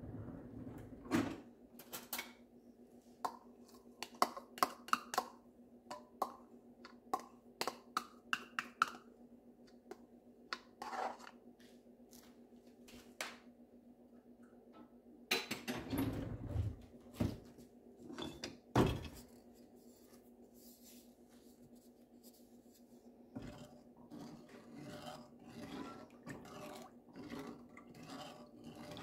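Kitchen handling sounds at a stove: scattered clicks and knocks of containers and utensils, then a few heavier thumps about halfway through. In the last few seconds a wooden spoon stirs milk and cream in a saucepan, scraping lightly against the pan. A low steady hum runs underneath throughout.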